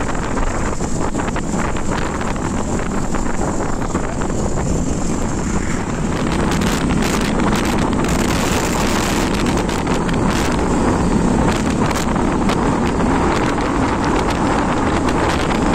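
Wind buffeting the microphone of a camera on a moving motorcycle, in steady gusts, with the motorcycle's engine and road noise running underneath.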